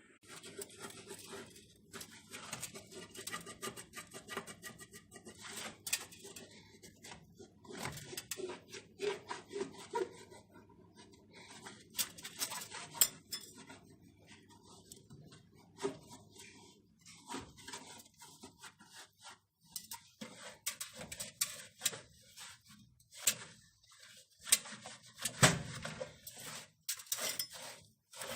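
Irregular clattering and knocking of dishes and kitchen items being handled. A steady low hum runs underneath and stops about two-thirds of the way through.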